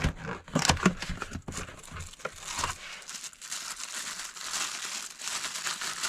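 Cardboard box being opened, with several knocks and scrapes of the flaps and contents in the first few seconds, then a plastic bag crinkling steadily as the wrapped manual coffee grinder is handled and unwrapped.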